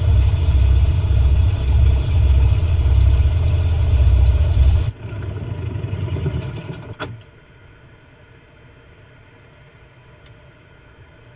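Cessna Stationair amphibious plane's piston engine running with a steady low pulse. It cuts sharply about five seconds in and winds down over the next two seconds, then stops. A few faint ticks follow.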